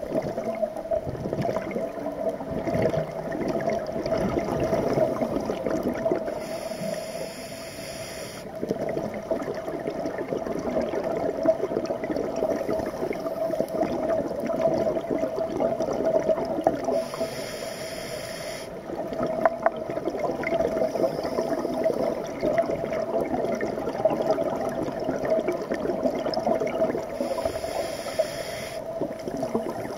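Scuba diver breathing underwater through a regulator: three hissing inhalations about ten seconds apart, each followed by a long rumble of exhaled bubbles. A steady tone runs underneath.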